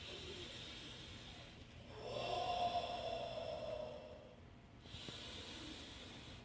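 A person breathing in, then exhaling a long, breathy, unvoiced 'whoa' for about two and a half seconds, then breathing in again: the 'whoa' healing sound of the six-healing-sounds breathing exercise.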